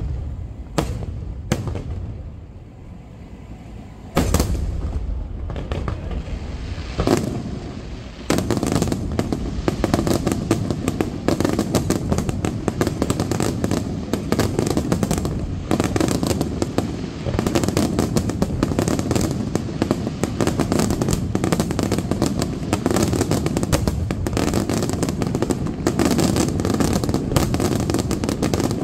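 Aerial fireworks display: a few separate shell bursts bang in the first seconds, then from about eight seconds in a dense, unbroken barrage of rapid reports and crackling sets in.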